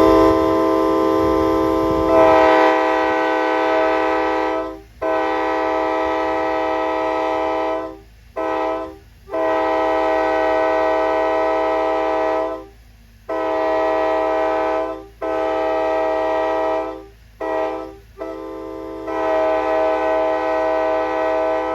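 Multi-chime locomotive air horn sounding a chord, blown in eight blasts: long, long, short, long, then the same again, the grade-crossing signal given twice. The last long blast starts weaker and swells to full volume about a second in.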